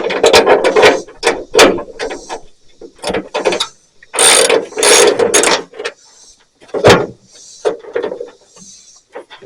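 A fastener being backed out a little with a ratcheting tool, run in several short bursts of clicking and whirring.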